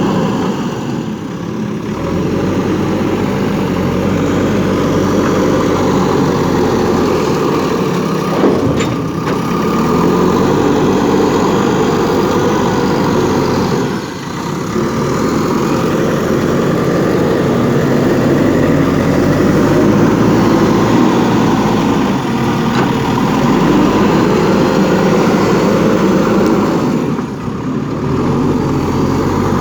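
JCB 3DX backhoe loader's diesel engine running steadily as the machine works, dipping briefly in level three times, with one short sharp click in the middle.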